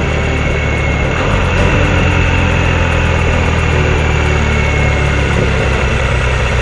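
Motorcycle engine running steadily under way.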